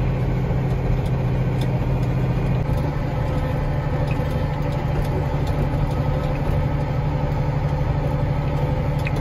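Case IH Magnum 7230 tractor's diesel engine running steadily, heard from inside the closed cab: a constant low hum.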